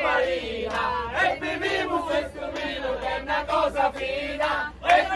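A group of people singing together, several voices at once.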